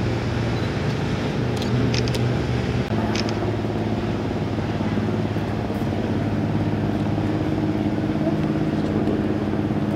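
A steady low engine-like hum, its pitch pattern shifting slightly about three seconds in, with a few faint clicks.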